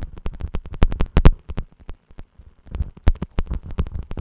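A rapid, irregular run of sharp clicks and crackles, several a second.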